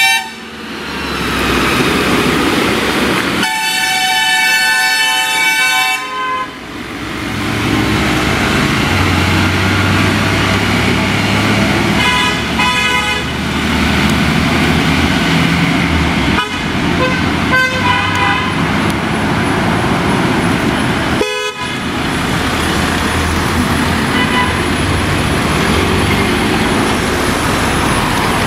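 Eicher transit concrete mixer truck's diesel engine running as it works round a hairpin bend, with traffic noise. A long vehicle horn blast comes a few seconds in, and shorter horn toots come around the middle.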